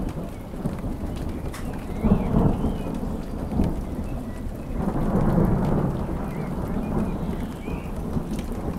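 Steady rain falling on several surfaces, with a low rolling thunder rumble that swells about two seconds in and again around five seconds in.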